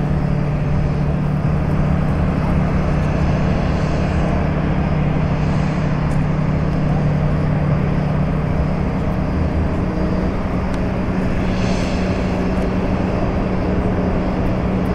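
Twin-engine jet airliner climbing out after takeoff, its engines giving a steady, loud roar with a low hum underneath.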